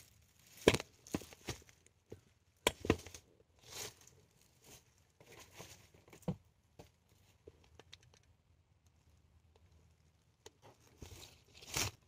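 Bursts of rustling and crinkling broken by sharp clicks and snaps. They are busiest in the first few seconds, die down to a lull, and return with a loud snap near the end.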